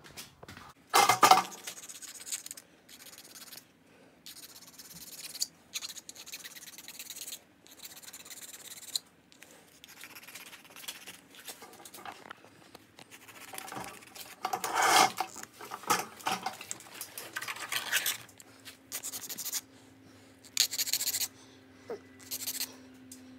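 Hand file rasping against a small toy car in short, irregular scraping strokes with brief pauses between them.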